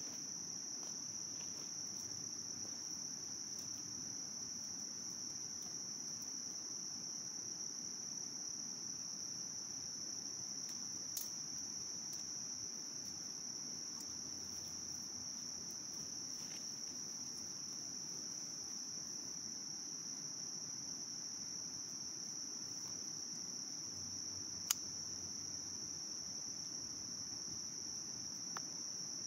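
Steady, unbroken high-pitched chorus of insects, with a few sharp clicks over it, the sharpest about 25 seconds in.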